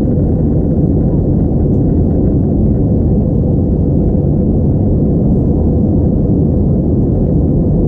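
Steady, deep cabin roar of an Airbus A321-231 in flight, heard from a window seat behind the wing: the noise of its IAE V2500 engines and the airflow over the fuselage, even and unchanging.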